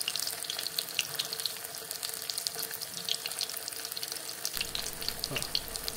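Pieces of rohu fish sizzling and crackling as they fry in hot oil in a kadhai, with a steady run of small spatters.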